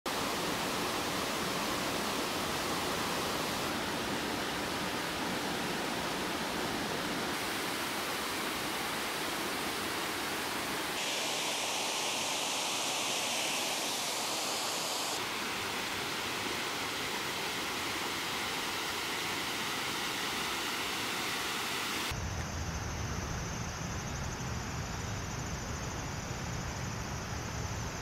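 Steady rush of falling and flowing water from a waterfall and rocky stream, its tone changing abruptly every few seconds from one shot to the next. For the last several seconds a lower, duller noise takes over.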